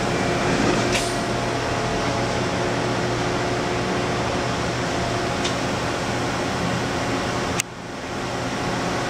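Steady hum and fan whir of a powered-up Haas VF-2 CNC vertical machining center, with a couple of faint clicks. The sound drops abruptly near the end and builds back up.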